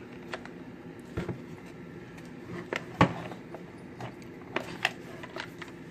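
Scattered clicks and knocks of a plastic drill bit case being handled while its locked clasp is worked at, the loudest a sharp knock about three seconds in.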